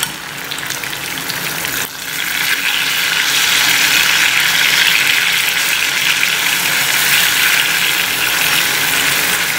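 Chicken breasts with onion, peppers and tomato sizzling in an oiled frying pan as they are turned with a fork; the sizzle dips briefly and then grows louder about two seconds in.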